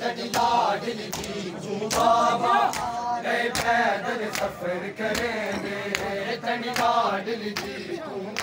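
Men's voices chanting a noha together, over a steady beat of sharp slaps about once a second from mourners beating their chests in matam.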